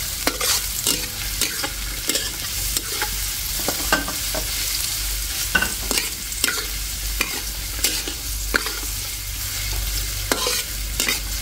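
Metal spatula scraping and clinking against a large metal wok, in irregular strokes about one or two a second, as julienned ginger and garlic are stir-fried in oil. A steady sizzle runs underneath.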